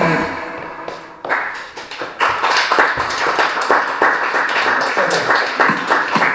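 Background guitar music fades out at the start, then a small group claps in a fast, dense run of hand claps as the juggling routine ends.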